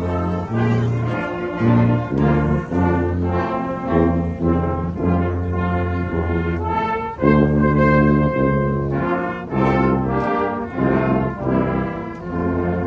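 A corps brass band playing a tune in full harmony over a strong bass line, the notes changing about every half second. About seven seconds in, the band holds a long chord for over a second before moving on.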